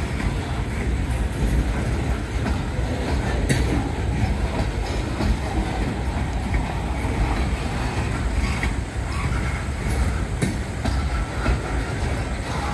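Freight train's lumber-loaded centerbeam flatcars rolling past, a steady rumble of steel wheels on rail. A few sharp clicks come through, one about three and a half seconds in and another near ten seconds.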